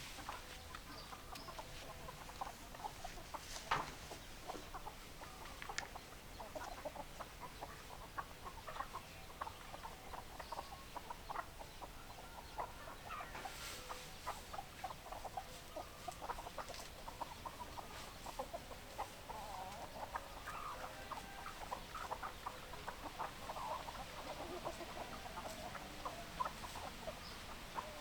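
A flock of hens clucking, with many short overlapping clucks throughout. There is one sharp click about four seconds in.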